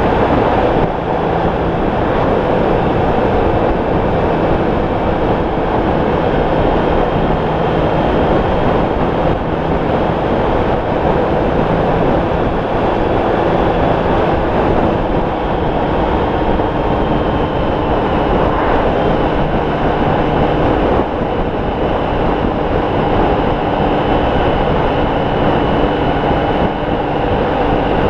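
Honda ST1300 motorcycle cruising at road speed. A steady rush of wind noise over the microphone dominates, with the V4 engine's steady hum faintly underneath.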